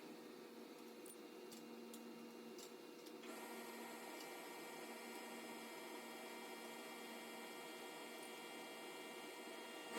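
Faint steady hum with a few light ticks; more steady tones join the hum about three seconds in.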